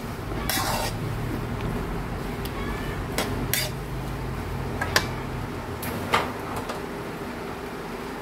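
Metal tongs clinking and scraping against a metal wok while tossing glass noodles and vegetables, with a few sharp clinks scattered through it, the clearest about half a second, three, five and six seconds in. A low steady hum sits under it and fades out about five and a half seconds in.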